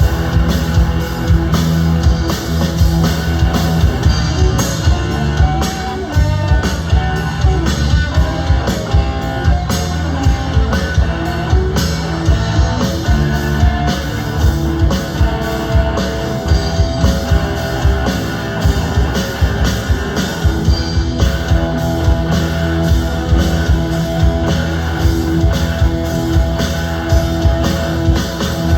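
A rock band playing loudly: guitar over a steady drum-kit beat, with no singing.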